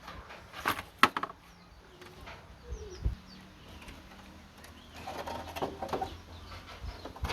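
Birds calling, with a few sharp knocks about a second in.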